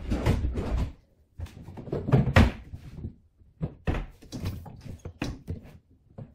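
Kitchen wall-cupboard doors being opened and shut, with a string of knocks and thuds.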